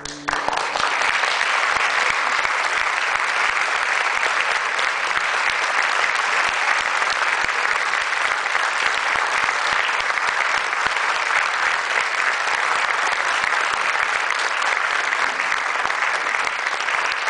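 The last ringing note of the oud and tanbur dies away as the concert audience bursts into applause. The applause holds steady and strong.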